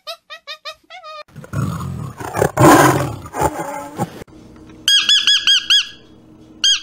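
A macaque's quick run of high squeaks, then a tiger's rough roar, loudest about halfway through. Then a rapid string of clear, arching bird calls, several a second, which stops briefly and starts again near the end.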